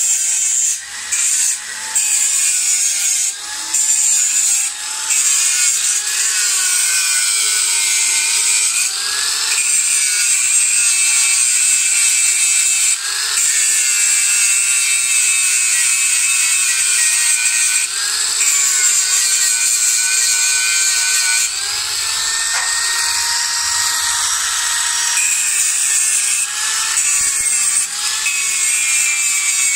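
Handheld electric angle grinder grinding into a steel tube frame: a steady high whine over a harsh grinding hiss, the pitch dipping again and again as the disc bites and picking back up as it eases off. A few short breaks in the first five seconds as the disc is lifted off the steel.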